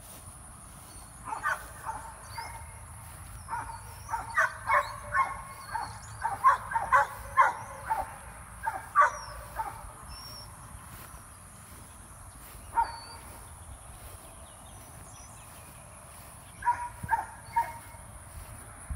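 Dog barking in runs of quick barks: a long run through the first half, a single bark about two-thirds of the way through, and a short burst of barks near the end.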